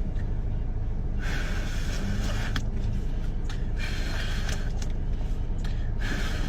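A person blowing breathy puffs of air, several in a row each lasting up to about a second, over the steady low road rumble of a moving car's interior.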